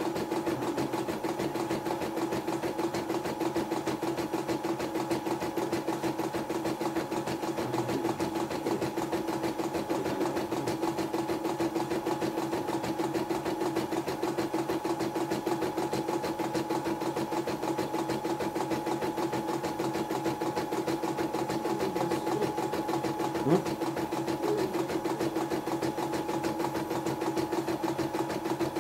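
YOKO portable computerized embroidery machine stitching steadily: a rapid, even needle rhythm over a constant motor hum. One sharp click about three-quarters of the way through.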